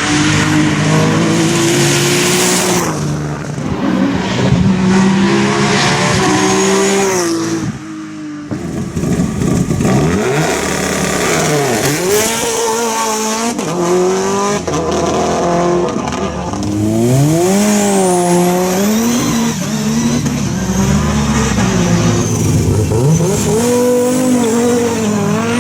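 Rally car engine revving hard up a hill-climb stage, its pitch repeatedly climbing and dropping as it works through the gears. There is a short dip about eight seconds in before another run of revving.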